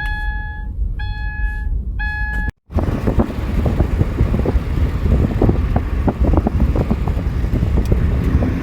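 Three electronic beeps, each a steady tone, about a second apart, over a low rumble. After a brief cutout, strong wind gusts against a vehicle, with rain striking it in many irregular sharp ticks.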